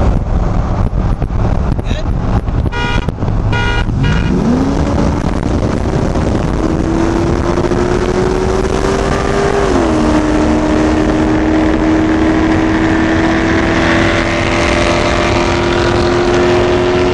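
Chevrolet LS1 V8 pulled at full throttle in a highway roll race: the engine note climbs steadily, drops sharply at one upshift about ten seconds in, then climbs again. Two short honks sound just before the run starts.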